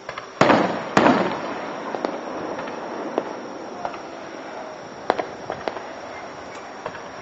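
Aerial fireworks bursting, heard through a dashcam's microphone: two loud bangs close together about a second in, each trailing a crackle, then a scatter of smaller pops and crackles.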